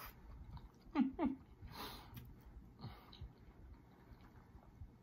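A man chewing a mouthful of steamed purple cabbage, with two short closed-mouth hums of enjoyment about a second in and soft wet mouth and fork clicks.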